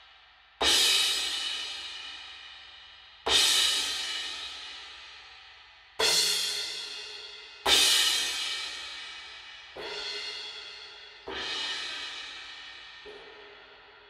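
Aisen Dirt series B20 bronze cymbal struck with a soft mallet, single strokes roughly every two seconds, each left to ring out and fade in a long wash. The last strokes are softer.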